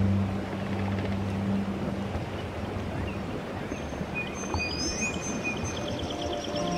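Ambient background soundtrack: a low droning hum that drops out about two seconds in, under a steady noisy wash, with a few faint high chirps and a brief rapid pulsing trill in the second half.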